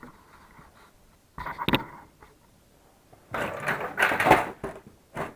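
Hand tools being handled: a sharp metallic clatter about one and a half seconds in, a longer stretch of rattling and clinking later on, and a last click near the end.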